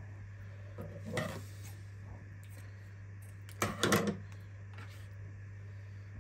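Kitchen handling sounds over a steady low hum: a short faint rustle about a second in, then a louder cluster of clicks and clatter just past halfway.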